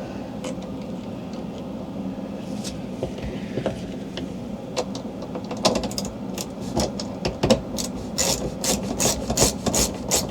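Hand tool working a threaded cable adjuster on an RV slide-out mechanism: metal rubbing over a steady low hum, then, from about halfway, a run of quick ratchet-like clicks about three to four a second as the adjuster is tightened.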